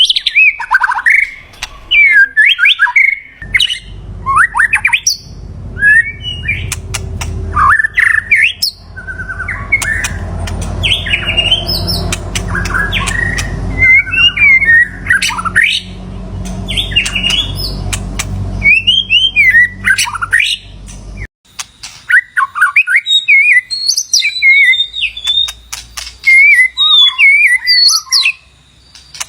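White-rumped shama singing: a varied series of short, rich whistled phrases with quick rising and falling notes, one after another. A low rumble sits under the song for much of the time and cuts off suddenly about two-thirds of the way through.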